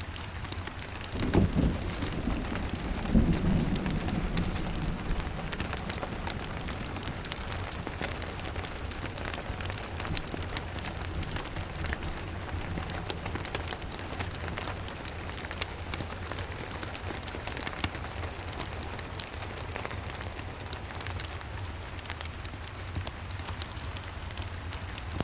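Steady rain with a low rumble of distant thunder that starts about a second in, swells again, and dies away over the next few seconds.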